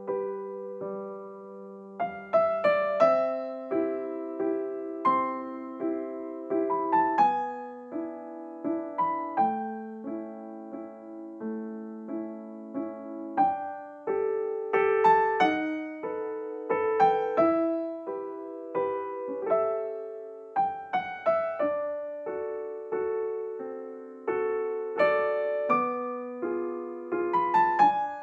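Background piano music: a gentle melody of struck notes over held lower notes.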